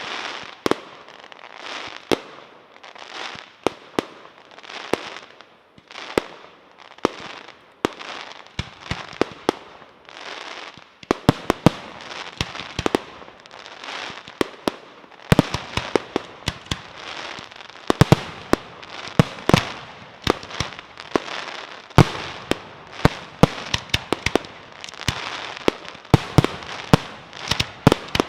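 Fireworks display: a run of sharp bangs with crackling between them. The bangs come about once a second at first and grow much faster and denser about eleven seconds in.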